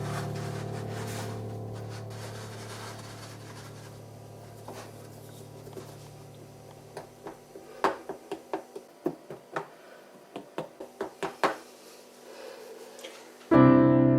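Soft piano background music fading away, then a quick irregular run of about a dozen short knocks. Piano music starts again abruptly near the end.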